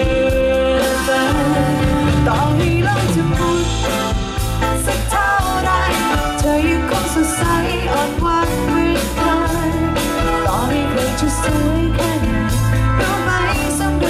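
Live band playing a pop-rock song, with a steady drum beat, sustained bass and a wavering melodic lead line over it.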